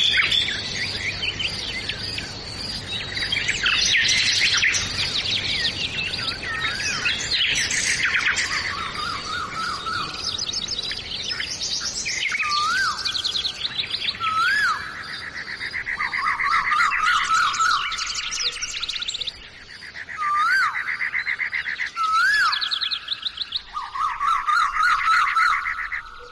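Several songbirds chirping and trilling together, with a clear rising-then-falling whistle repeated four times in the second half.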